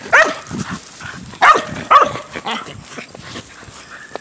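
A pet dog barking several times in quick succession, short sharp barks over the first three seconds, then a quieter stretch.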